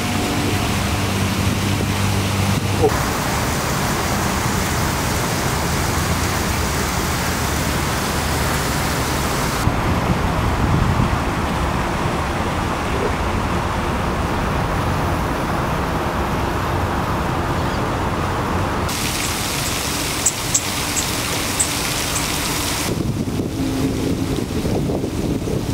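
Steady outdoor ambient noise, wind and traffic-like rumble, that changes abruptly several times where the shots cut. A low hum is heard for the first few seconds.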